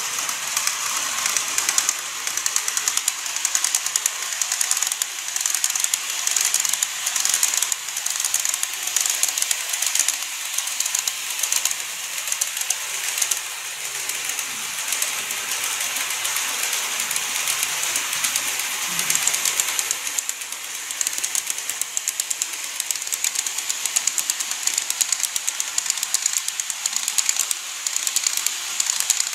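KATO N-scale model trains running along a plastic viaduct track: a fast, dense clicking of small wheels over the rail joints over a steady high hiss.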